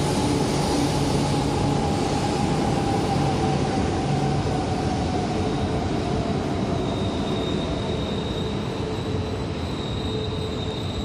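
E4 series Max Shinkansen train running past on the platform tracks: a steady rush of wheel and rail noise with a held whine. It slowly eases off, and a high thin tone comes in about two-thirds of the way through.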